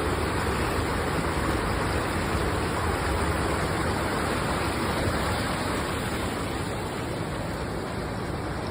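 Steady, even rushing noise with no distinct events, fading slightly near the end.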